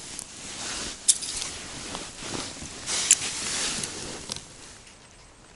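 Rubber boots stepping through wet snow and slush on thin, thawing river ice: a few crunching, squelching footsteps, with two sharp clicks about one and three seconds in, fading out near the end.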